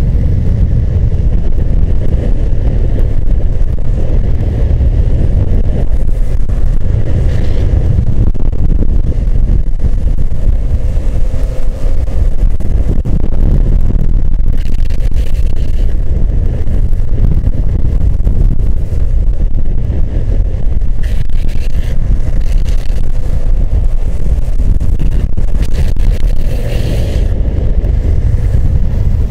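Heavy wind rush on the microphone at downhill speed over a steady rumble of skateboard wheels on asphalt, with a few short higher-pitched hisses along the way.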